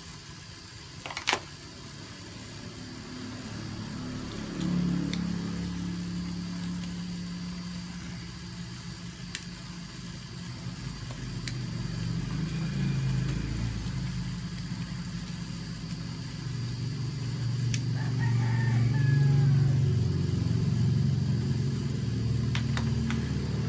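A motor vehicle's engine running steadily, growing gradually louder from about four seconds in and loudest near the end. There is a sharp knock about a second in, and a rooster crows briefly near the end.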